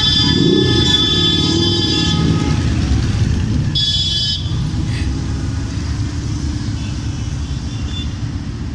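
A group of motorcycles riding past, their engines running together. A horn sounds through the first two seconds, with a short toot about four seconds in.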